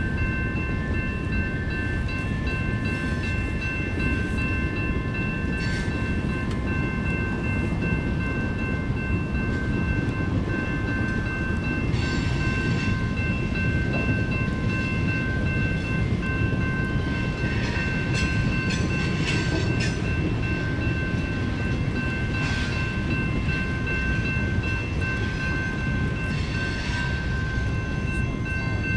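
A CSX freight train rolling past with a steady heavy rumble of wheels and cars. Several steady high ringing tones run over it, and clanks and squeals come now and then, mostly in the second half.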